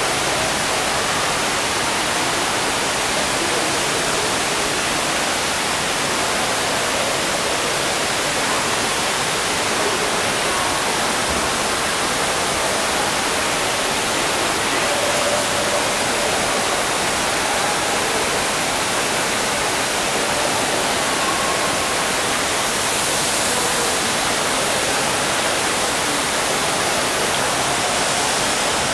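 Steady, unbroken rushing of a large indoor waterfall, an even roar of falling water that does not change in level.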